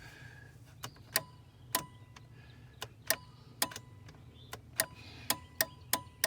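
Jeep hazard flashers ticking on and off with the new EFL15 flasher in place, sharp clicks about two to three times a second starting about a second in: the replaced flasher is working.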